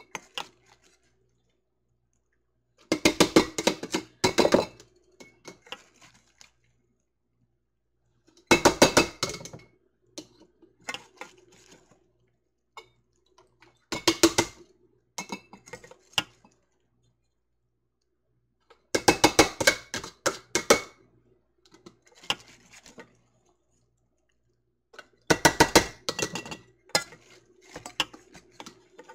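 Diced onions being added to glass quart canning jars one jar at a time: five bursts of clinks and knocks against the glass, about every five to six seconds.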